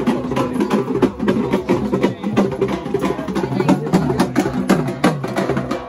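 Music with a fast, dense percussion beat under a pitched melody.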